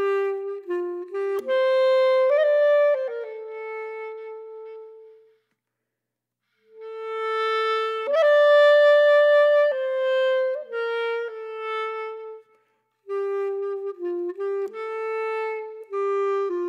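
Unaccompanied saxophone playing a slow, sad melody of held notes in phrases, with short pauses between them.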